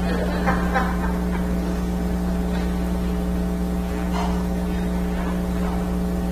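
Steady electrical hum made of several constant tones, with faint voices murmuring briefly about half a second in and again around four seconds in.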